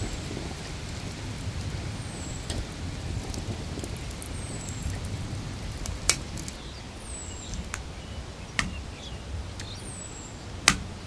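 Charcoal grill fire crackling, with a few sharp pops over a low steady rumble. A short, high, falling chirp repeats every two to three seconds.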